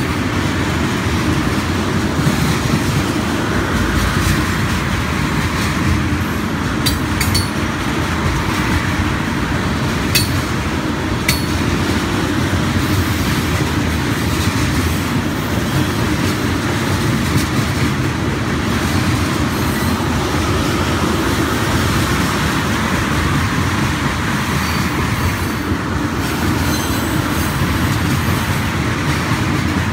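Freight train of railroad tank cars rolling past: a steady rumble of steel wheels on the rails, with a few sharp clicks now and then.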